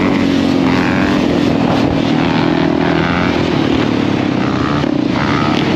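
Dirt bike engine running steadily under the rider at a cruising pace, with other dirt bike and quad engines coming and going in the mix.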